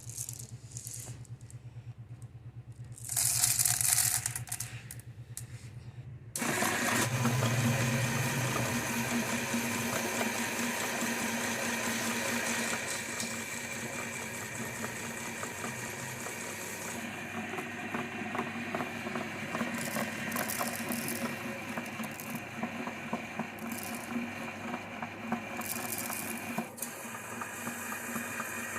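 Electric meat grinder running and grinding, with a dense rattling clatter that starts abruptly about six seconds in and continues steadily. A loud hiss about three seconds in comes first, over a low hum.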